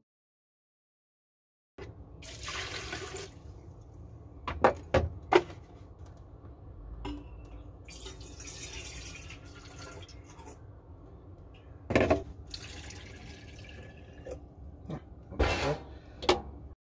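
Water poured from a mug into kettles at a sink in several separate pours, starting about two seconds in, with sharp clinks and knocks of mug and kettle between the pours.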